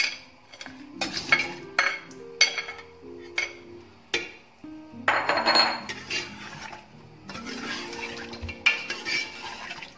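Metal spoon clinking and scraping against the inside of a pressure cooker as chicken pieces are stirred and fried in masala, with repeated sharp clinks.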